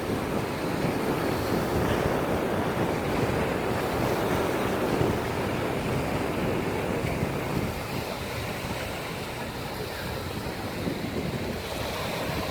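Small sea waves washing onto the shore, with wind rumbling on the microphone.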